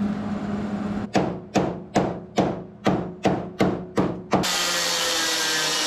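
A hand hammer striking the steel of a car's A-pillar about nine times, two or three blows a second, knocking the welded seam flat. About four and a half seconds in, a power grinder starts running steadily, smoothing the seam flush.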